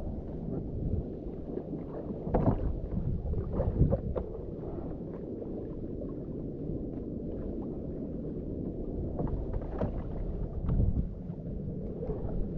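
Sea water lapping against a small wooden outrigger boat, with a low rumble of wind on the microphone and a few knocks on the hull, the loudest about two and a half and four seconds in.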